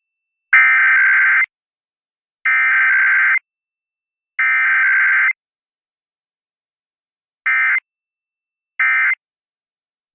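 Emergency Alert System SAME digital data tones for a Required Weekly Test. Three buzzing header bursts of about a second each, a second apart, are followed a couple of seconds later by short end-of-message bursts. The second of these comes about a second after the first, and a third starts at the very end.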